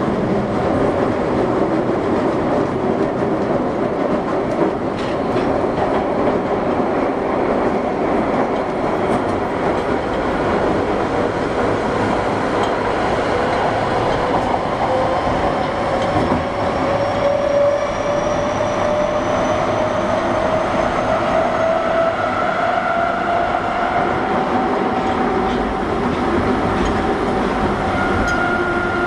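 Osaka Metro 21 series subway train running in the tunnel, heard from on board: steady wheel and running noise. About halfway through, the traction motor whine rises in pitch as the train gathers speed, then holds steady near the end.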